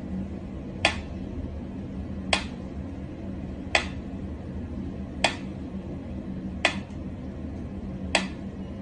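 A sharp, light clink or click repeating evenly about every second and a half, six times, over a steady low hum.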